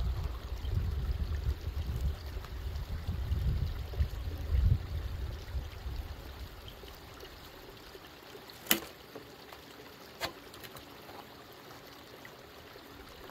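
Water running and trickling, with an uneven low rumble in the first few seconds. Past the middle come two sharp clicks about a second and a half apart.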